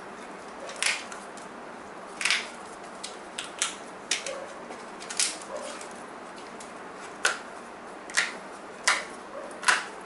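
BoomCo Smart Stick foam darts being pulled one at a time off a paper target. Each sticky tip gives a short, sharp snap as it comes away, about a dozen snaps at irregular intervals; the tips are still gripping the target firmly.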